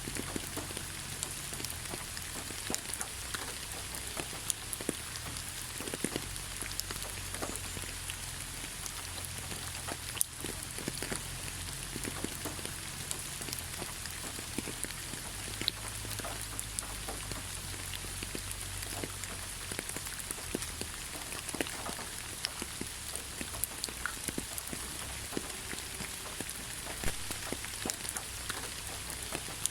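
Steady rain falling on leaves: an even hiss with many separate drops pattering and ticking throughout, over a low rumble.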